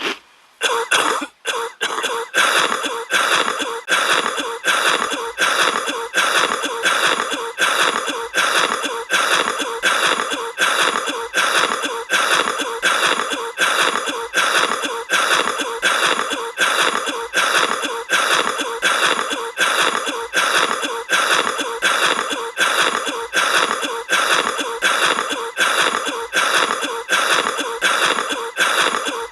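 Cartoon duck coughing: a raspy, wheezy cough repeated over and over in a fast, even loop. It starts just after a brief pause at the very beginning.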